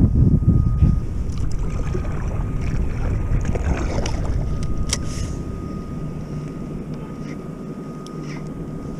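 Wind gusting on the microphone, easing after about a second, over water slapping and splashing against a kayak hull.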